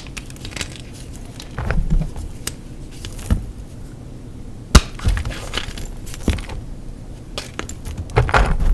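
Block of gym chalk being crushed and crumbled, giving irregular dry crunches and crackles, with one sharp snap just under five seconds in and a cluster of crunches near the end.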